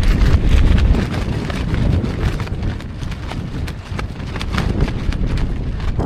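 Strong wind buffeting the microphone in a heavy low rumble, with a rapid, irregular clatter of sharp clicks over it.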